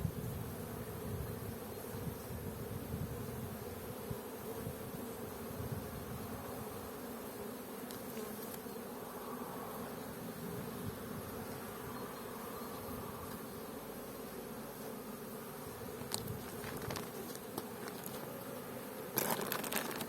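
Honeybees buzzing steadily around an opened hive, a continuous hum. A click comes near the end, followed by a burst of rustling and clicking from handling the hive.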